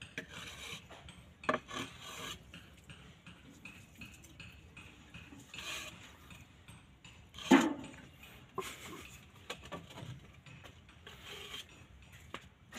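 Steel trowel scraping and spreading cement mortar over the back of a ceramic floor tile in short rasping strokes, with a sharp knock about seven and a half seconds in.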